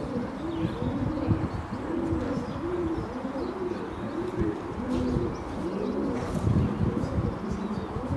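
Pigeons cooing, several overlapping and continuous, each coo a short low rise and fall, with faint chirps of small birds above them.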